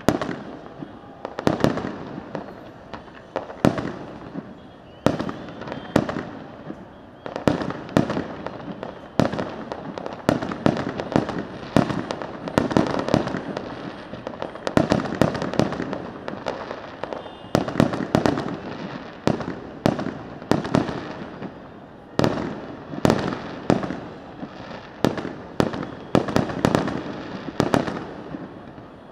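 Fireworks display: aerial shells bursting one after another, many sharp bangs coming in quick succession, at times several a second, over a continuous rumble of further reports.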